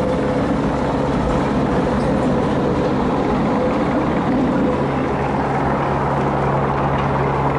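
Tram running away across a junction on its rails, amid steady street traffic noise with a continuous low hum that grows stronger in the second half.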